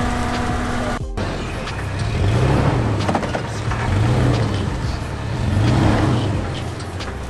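An off-road 4x4 truck's engine revving up and easing off three times, about a second and a half apart, as it works up the rock ledges. Before that, a steady hum cuts off about a second in.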